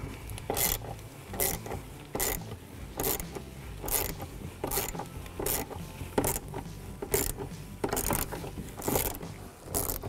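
Hand ratchet with a 10 mm socket and extension loosening a nut on the door check stud: a short burst of pawl clicks on each swing, repeating steadily about once every three-quarters of a second.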